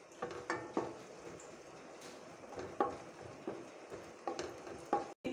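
Wooden spatula stirring cashews and raisins frying in ghee in a nonstick kadai: irregular light clicks and scrapes against the pan over a faint sizzle.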